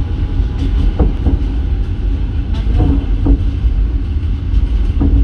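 Passenger train running on the rails: a steady heavy rumble of the wheels with scattered knocks and brief squeals.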